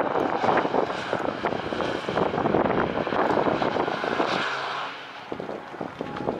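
Nissan Z34 (370Z) 3.7-litre V6 engine and exhaust running hard as the car passes close by under power, fading as it pulls away near the end.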